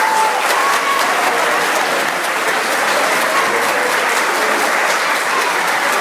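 Audience applauding steadily, a dense patter of many hands clapping, with a few voices calling out.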